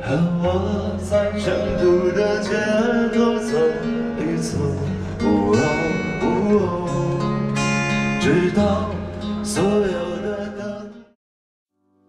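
Live street music: a man singing to an amplified guitar played through a small speaker. The music cuts off suddenly about a second before the end.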